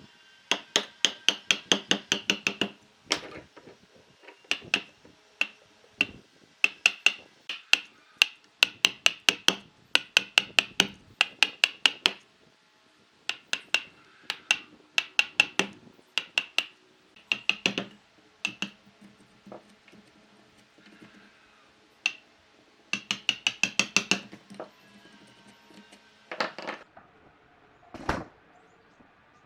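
Runs of rapid hammer blows, about four or five a second with short pauses between runs, each with a metallic ring: a hammer striking a chisel to cut a joint in dried wood.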